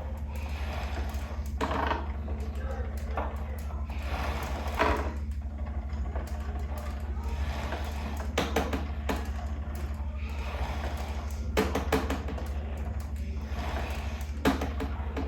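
Concept2 rowing machine pulled slowly with short strokes, giving a strange rattle: a short clatter of clicks about every three seconds, five times, over a steady low hum.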